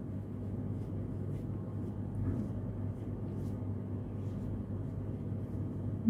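Steady low background hum, with a few faint soft ticks.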